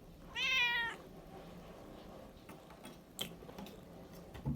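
A cat meows once, a short high call that falls slightly in pitch, about half a second in. A few faint clicks follow.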